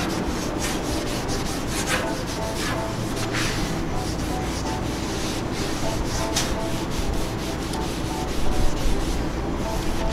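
A paper towel held in metal tongs wiped back and forth over a Blackstone griddle's hot steel top in repeated, irregular rubbing strokes. It is spreading peanut oil in a thin layer to season the griddle.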